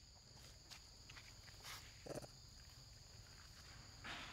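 Near silence: faint outdoor background with a steady high-pitched hum and a few soft, brief sounds, a little louder near the end.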